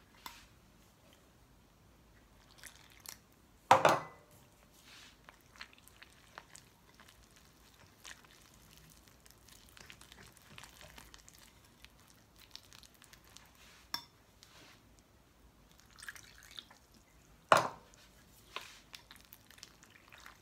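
Wire whisk stirring wet flour batter in a glass bowl: irregular light ticks and soft scraping of the wires against the glass, with two louder clinks that ring briefly, one about four seconds in and one near the end.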